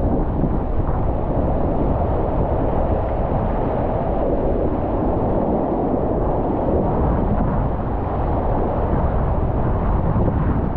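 Whitewater rapid rushing steadily around a kayak, heard up close from the boat, with a heavy low rumble of water and wind buffeting the microphone.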